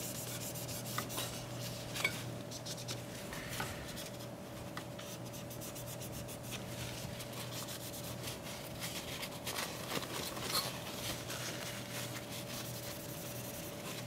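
Folded paper towel rubbing and scrubbing on the metal lid of an Intel Xeon X5690 processor, wiping off old thermal paste: soft scratchy strokes with a few light taps, over a faint steady hum.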